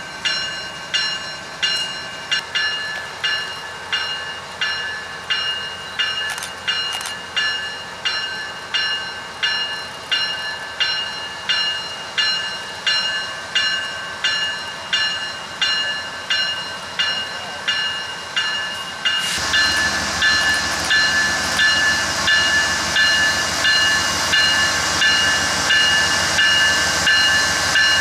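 A railroad bell rings steadily, a little more than one strike a second, as a CSX freight train led by GE diesel locomotives approaches. About two-thirds of the way in, the locomotives' engine and wheel noise grows sharply louder under the bell.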